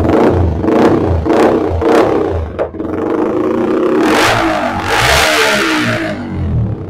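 Yamaha R15 M's 155 cc single-cylinder engine running loud through a newly fitted aftermarket full-system exhaust, revved in several quick throttle blips over the first couple of seconds. It is then held at a longer, higher rev from about four to six seconds in before dropping back toward idle.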